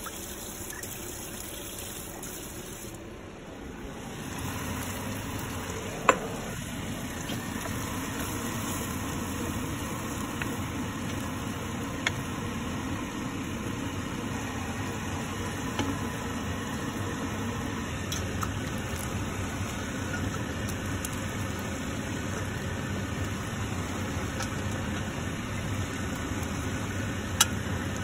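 Kitchen tap running into a stainless steel sink for the first few seconds. After that comes a steady low rushing noise, broken by a few sharp clicks of a wooden spoon knocking against a frying pan as a tomato sauce is stirred.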